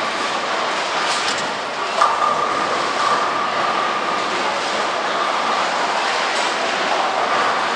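Bowling alley din: a steady rumble of balls rolling down the lanes and pinsetter machinery running, with pins clattering about one and two seconds in and a steady high tone from about two to six seconds in.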